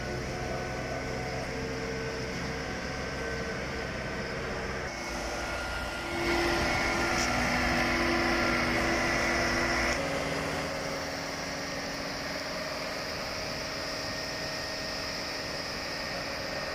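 Mobile boat hoist (travel lift) running steadily as it lowers a motor yacht on its slings, its engine and hydraulics getting louder with a high whine for a few seconds in the middle.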